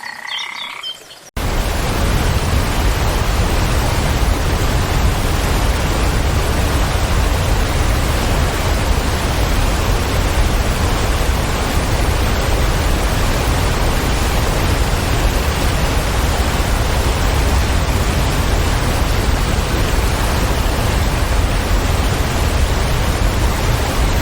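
A waterfall's water falling, a loud, even, steady rush heaviest at the low end, starting abruptly about a second in after a few bird chirps.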